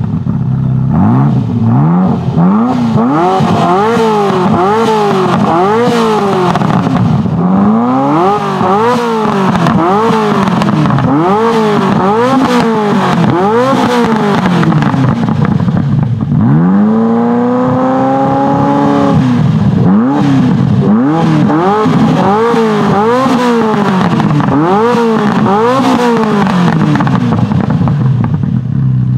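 Ferrari F40's twin-turbocharged V8 blipped repeatedly while parked, about one rev a second. About two-thirds of the way through it is held up for a longer rev of a couple of seconds, then the blips resume.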